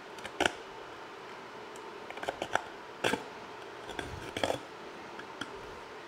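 A hand deburring tool scraping the cut edge of a sheet-metal panel in short, sharp strokes: one about half a second in, a quick cluster a little past two seconds, one at three seconds and another cluster around four and a half seconds.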